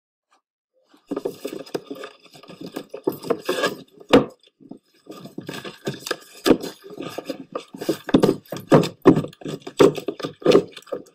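Played-back recording of someone looking for a book: a run of rubbing, scraping and knocking that starts about a second in, with a few sharper knocks along the way.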